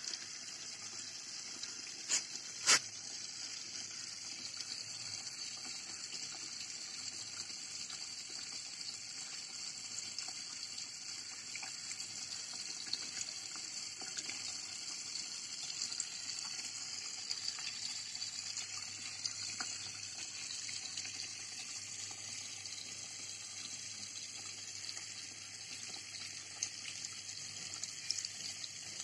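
Steady high-pitched hiss throughout, with two sharp clicks a couple of seconds in.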